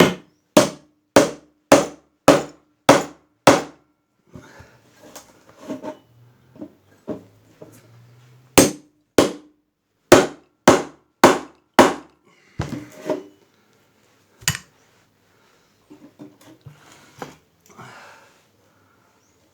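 Hammer blows on a Lister D engine's radiator as it is broken apart to remove its leaking centre section: a run of seven sharp metallic strikes at about two a second, lighter tapping and scraping, then another run of strikes about halfway through and a few spaced blows near the end.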